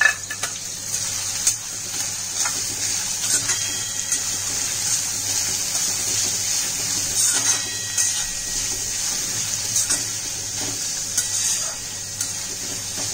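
Chopped onions sizzling steadily in hot oil in an iron kadhai, with a spatula stirring them and now and then clicking against the pan.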